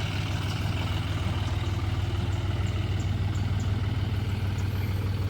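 Diesel tractor engine idling steadily at an even pitch.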